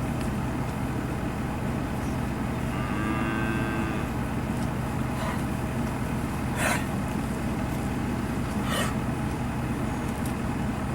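Steady low mechanical hum with background noise, with a faint short pitched call about three seconds in and two brief hissing sounds later on.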